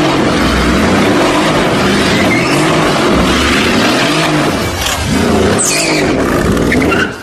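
Mercedes-AMG car doing a burnout: the engine revs up and down again and again while the spinning rear tyres screech. The sound cuts off suddenly near the end.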